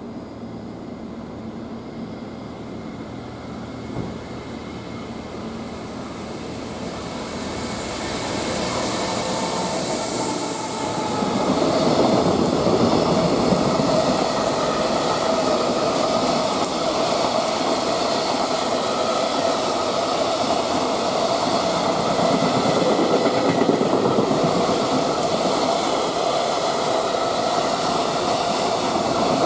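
A JR Freight EF210 electric locomotive hauling a container freight train approaches and passes; the sound builds over about ten seconds, with a brief high hiss as it comes close. Then the long string of container wagons runs by with a steady rumble and wheel clatter on the rails.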